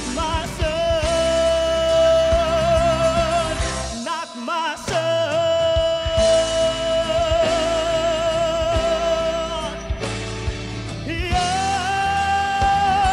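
Male vocalist belting long held notes with wide vibrato over band accompaniment. The band drops out briefly about four seconds in, and the last held note, near the end, is pitched a little higher.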